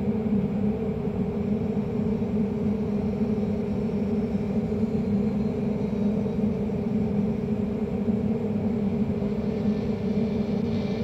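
A steady low droning rumble with no break or change.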